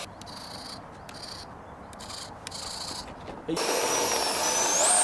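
Faint hiss, then about three and a half seconds in the electric ducted fan of an L-15 jet model (64 mm fan, 6S) starts abruptly and spools up for takeoff, its whine rising in pitch near the end.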